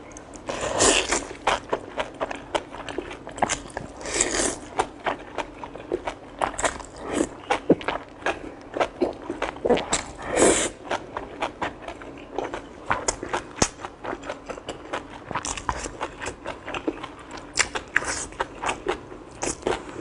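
A person eating fatty beef slices: chewing and biting, with many wet mouth clicks and smacks at an irregular pace and a few louder bites.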